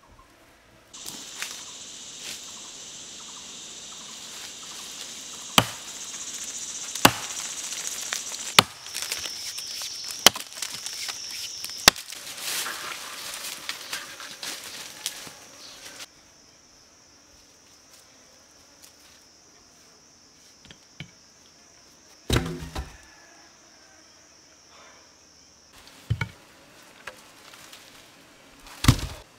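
An axe chopping into wood: five sharp strikes about one and a half seconds apart, over a steady high drone of insects. Later, with only a thinner insect tone left, come a few heavy low thuds, like logs dropped on dirt.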